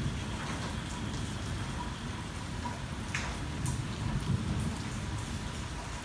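Rain falling on a car's roof and glass, heard from inside the car: a steady patter with single drops now and then ticking out sharply, the clearest a little after three seconds in.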